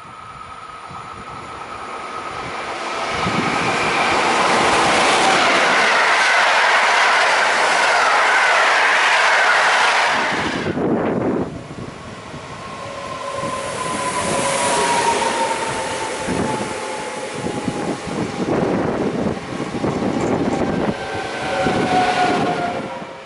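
An intercity train hauled by an EU07 electric locomotive approaches and passes at speed, wheels clattering loudly for several seconds. About eleven seconds in, the sound changes to an EN78 electric multiple unit running in along the platform, its electric drive whining and falling steadily in pitch as it slows.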